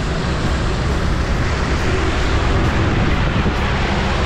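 Steady driving noise of a vehicle on a wet road: a low rumble under a hiss of tyres on wet tarmac.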